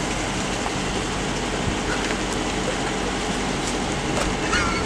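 Steady outdoor background noise with a low, even hum underneath, and a brief faint voice near the end.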